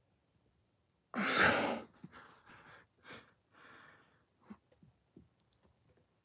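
A man's heavy breathing from exertion. About a second in he lets out one loud exhale, then takes several shorter, fainter breaths, with a few small clicks near the end.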